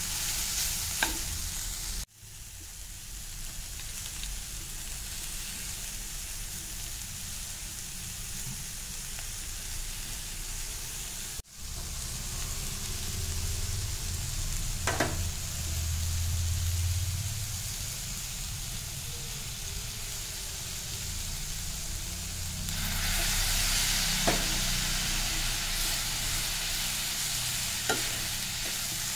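Paneer, mushrooms and onions sizzling in a nonstick frying pan while being stirred with a metal slotted spatula, which gives a few sharp clicks against the pan. The sizzle grows louder in the last few seconds.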